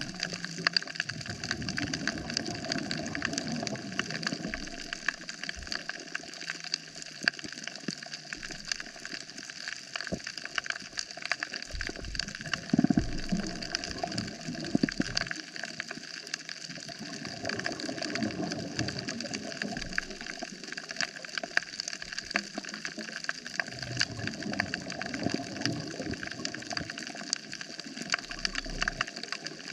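Underwater coral-reef ambience: a dense, steady crackle of countless tiny clicks, with a low rushing swell of water every few seconds.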